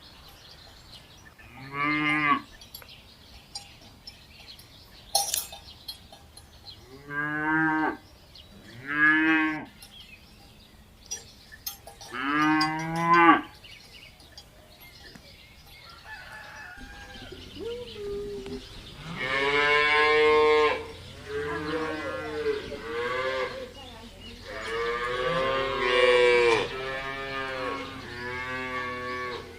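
Cattle mooing. Four separate moos of about a second each come in the first half, then a longer, near-continuous run of overlapping moos fills the second half.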